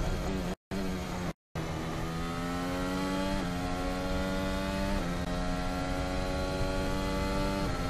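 AlphaTauri-Honda Formula 1 car's 1.6-litre turbocharged V6 hybrid engine heard onboard, accelerating hard with its note rising through three upshifts. Each gear change is a quick drop in pitch, at about three and a half, five and nearly eight seconds in. The audio cuts out completely twice within the first second and a half.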